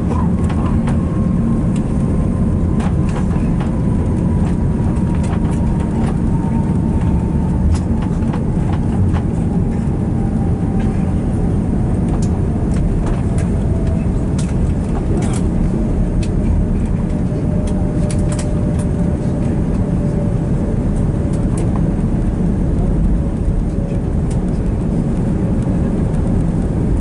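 Cabin noise of an Airbus A330 on its landing rollout: a loud, steady rumble of wheels and engines, with a jet engine whine slowly falling in pitch as the aircraft decelerates.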